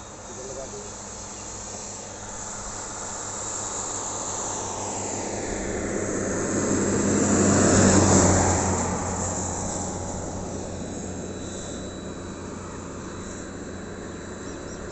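A vehicle driving past on an asphalt highway. Tyre and engine noise swells to its loudest about eight seconds in, drops in pitch as it passes, and fades away.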